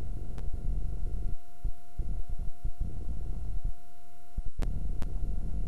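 A thin steady tone over an uneven low rumble, with a few faint clicks and no speech.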